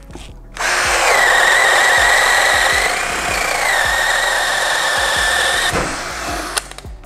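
Ryobi cordless angle drill boring a 25 mm hole into a wooden beam with a spiral wood bit. The motor runs up with a steady high whine, sags slightly in pitch under load partway through, and stops about six seconds in, followed by a single click.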